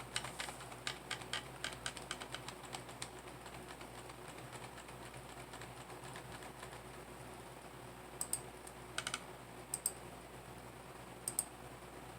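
Computer keyboard keys being pressed: a quick run of keystroke clicks in the first three seconds, then a few single presses near the end.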